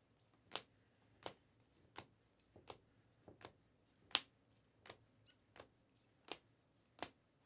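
Trading cards in rigid plastic holders clicking against one another as a stack is flipped through one card at a time: a faint, even run of sharp clicks, roughly one every two-thirds of a second.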